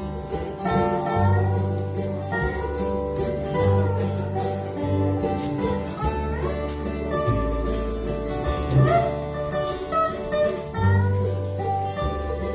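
Country band playing an instrumental break: a guitar picking the melody, with some bending notes, over a bass line.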